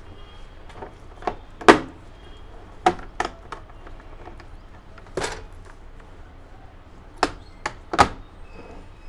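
Hard black plastic carrying case of a portable butane gas stove being handled and shut: about nine sharp plastic clacks and knocks at uneven intervals, the loudest near two seconds in and near the end.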